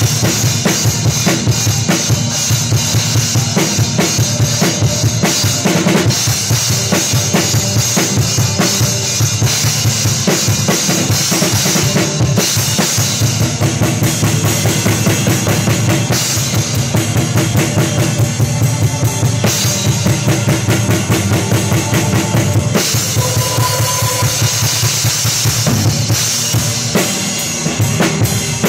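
Acoustic drum kit played close up in a steady groove: kick drum, snare and cymbals, with the rest of the band's music behind it.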